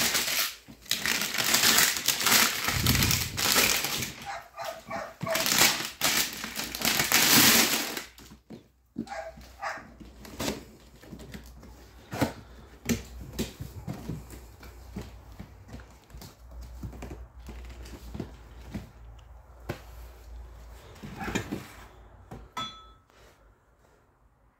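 Plastic wrapping and a cardboard box rustling and crinkling loudly for the first eight seconds or so as a jack stand is unpacked, followed by scattered knocks and clacks as the stand's metal parts are handled.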